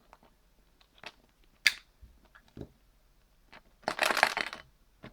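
A surprise egg being worked open by hand: scattered small clicks and knocks, then a dense crunching, crackling burst lasting under a second near the end as the egg breaks open.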